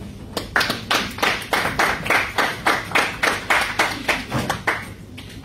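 Hands clapping in a steady, even rhythm, about five claps a second, for about four seconds, dying away near the end.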